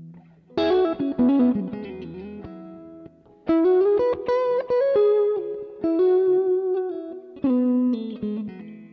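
Fender American Stratocaster electric guitar, freshly strung with Ernie Ball Primo Slinky 9.5 strings, playing single-note lead phrases with string bends and held, ringing notes, with a short pause about three seconds in.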